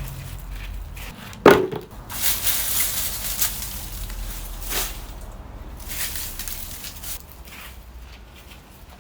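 Crunching, scraping and rustling of soil and potato plants being dug and pulled by hand, with a sharp loud knock about a second and a half in.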